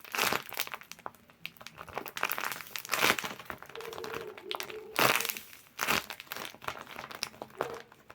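Crinkling and rustling of packaging being handled, in several short bursts, as squishy toys are taken out of a mystery box.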